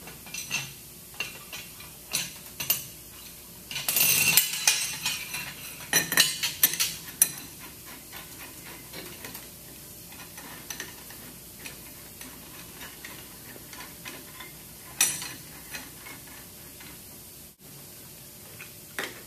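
Metal bolts, brackets and a wrench clinking and clattering against a metal pump housing as bolts are fitted and snugged hand tight. The clinks come in scattered clusters, the loudest rattle about four seconds in and another bunch around six to seven seconds, with single knocks later on.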